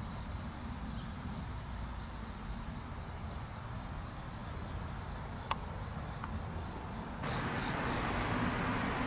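Quiet outdoor ambience: a steady low rumble with insects chirping in a regular high pulse. A single sharp click comes a little past halfway, and near the end the background steps up to a louder hiss.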